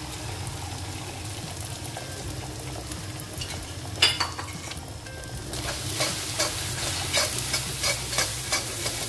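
Beaten egg sizzling in hot oil in a wok with garlic, shallots and chili, with a sharp knock about four seconds in. From just past halfway a metal spatula scrapes and clacks quickly against the wok as the egg is scrambled, and the frying gets louder.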